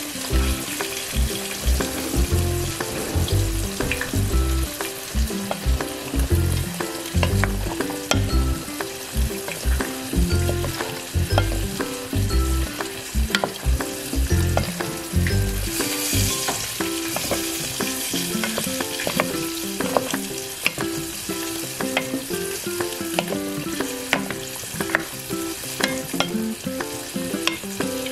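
Vegetables and crispy fried chicken sizzling in a white enamel pot as a wooden spoon stirs them, with frequent clicks and scrapes of the spoon against the pot.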